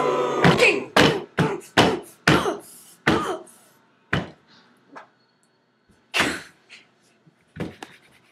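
Hands slapping and banging on a kitchen counter: a quick run of sharp thumps over the first three seconds, then a few scattered ones.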